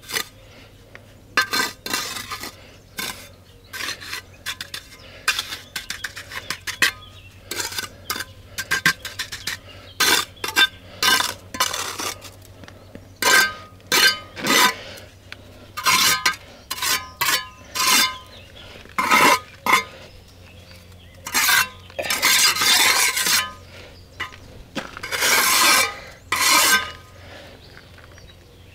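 Steel mason's trowel working mortar: repeated sharp scrapes and clinks against concrete blocks and the mortar bucket, some with a brief metallic ring, and two longer scraping strokes in the last third.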